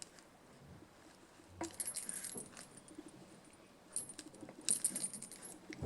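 Small metal pieces jingling in short bursts, once about one and a half seconds in and again from about four seconds in.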